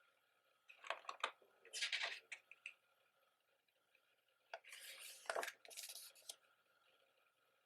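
Pages of a thick photo book being turned and handled, in three short bouts of paper rustling with quiet between.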